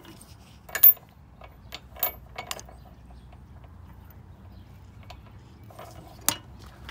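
A padlock and chain links clinking and clicking against each other and against steel gate posts as the lock is handled through the links. The sharpest click comes about a second in, three lighter clinks follow around two seconds, and one more comes near the end.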